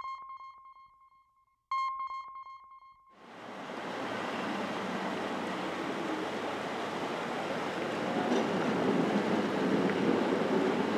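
Two electronic chime notes, each ringing and fading away. From about three seconds in they give way to the steady rush of muddy floodwater pouring down a street.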